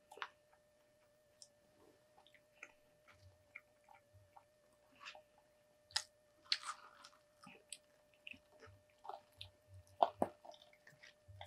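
Quiet, close-miked eating sounds: chewing with scattered small mouth clicks and lip smacks, and sipping of a milkshake through a plastic straw about six seconds in. A faint steady hum runs underneath.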